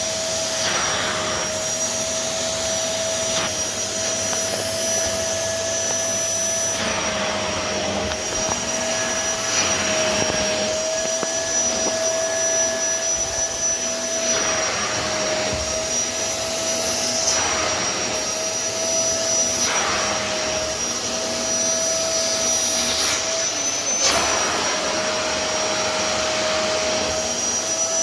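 Hitachi CV-950F vacuum cleaner running continuously, its motor whine holding a steady pitch, with a brief surge of rushing air every couple of seconds.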